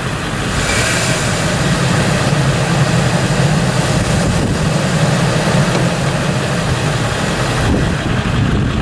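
1997 Ford F-150's 4.6-litre V8 engine running steadily, a little louder from about a second in and dropping back near the end.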